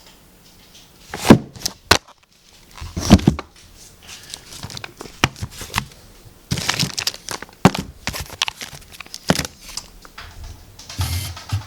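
Fireworks boxes and their plastic wrapping being handled: irregular crinkling and rustling with scattered sharp knocks, the loudest about a second in and again about three seconds in.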